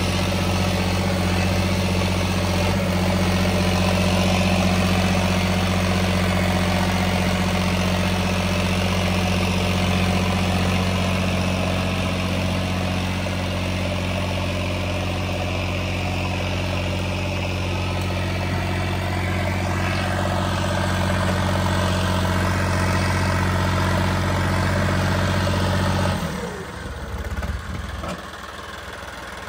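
Diesel engine of a John Deere 5105 tractor, a 40 HP three-cylinder fitted with an add-on turbocharger, running at a steady speed while pulling a harrow. Near the end the engine note falls away sharply.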